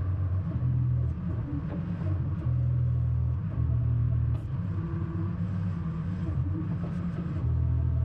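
Dynahoe 160 backhoe engine running under load while the hydraulic boom and bucket dig, heard from the operator's cab. Its pitch and level shift every second or so as the levers are worked, with a few light clanks.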